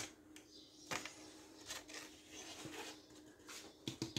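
Cocoa powder being sifted by hand through a plastic sieve over a bowl of flour: faint shaking with a few soft taps, then quick regular tapping on the sieve starts just before the end.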